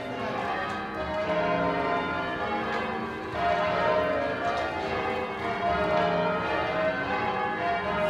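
Change ringing on the Mitchell Tower bells, a ring of tower bells swung full circle from ropes. The bells strike one after another in a continuous, even sequence of overlapping ringing tones.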